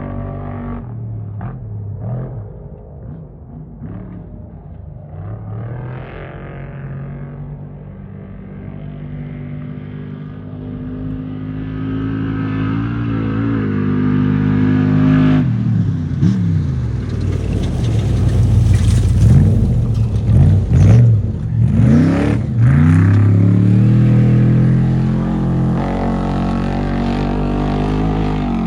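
Off-road race truck engines revving hard, the pitch swinging up and down quickly. It gets louder about halfway through and is loudest in the second half.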